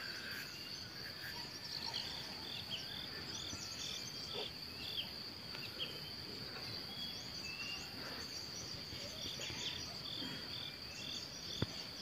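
A steady, high-pitched insect drone, with birds chirping over it in short notes, some repeated about twice a second.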